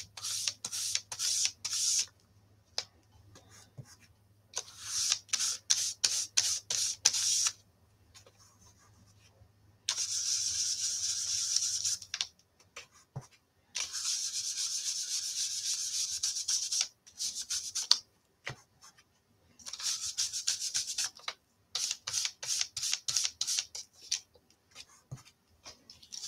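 Ink blending brush rubbed over cardstock: bursts of quick, scratchy back-and-forth strokes alternate with longer stretches of continuous rubbing, with short pauses between passes.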